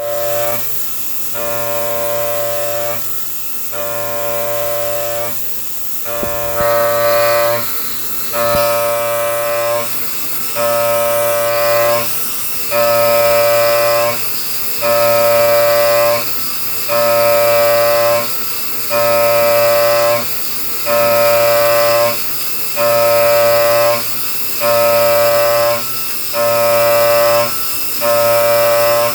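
High-speed CNC milling machine cutting, its tool giving a steady pitched whine with overtones that comes on for about a second and a half, then drops out briefly, about every two seconds as the cutter engages pass after pass, over a steady high spindle hiss.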